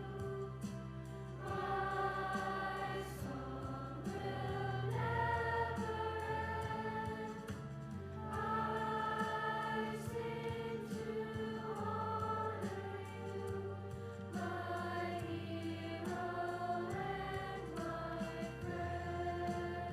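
A choir singing a slow song in long held notes, the pitch changing every couple of seconds, over a steady low instrumental accompaniment.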